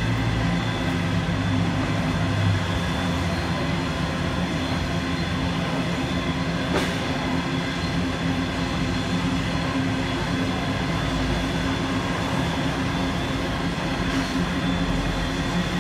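Locomotives standing at a station, running with a steady mechanical hum. One sharp clank comes about seven seconds in.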